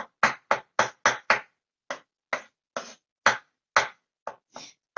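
Kitchen knife chopping boiled eggs on a wooden cutting board: a run of sharp taps, about four a second for the first second and a half, then slower, about two a second.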